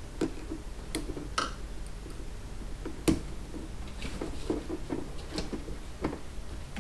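Hands working small parts on a motorcycle: a few scattered light clicks and taps, the sharpest about three seconds in.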